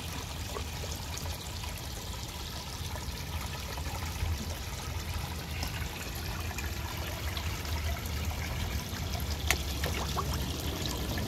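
Water spilling from a pond filter outlet into a koi pond, a steady splashing trickle, with a few sharp clicks near the end.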